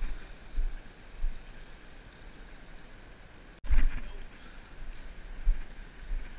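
Wind buffeting the microphone in low rumbling gusts over water washing around lava rocks. The sound breaks off a little past halfway and resumes with a loud gust.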